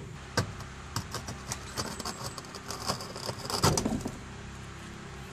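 Hydraulic power pack of a pipe-bursting rig running steadily, with a run of sharp cracks and clicks from about half a second to about four seconds in, loudest just before they stop: the bursting head starting to break into the old 4-inch concrete sewer pipe.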